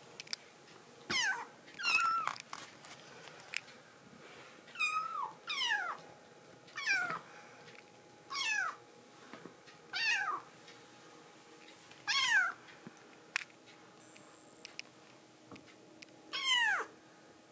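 Young kittens meowing again and again: about nine short, high calls, each sliding down in pitch.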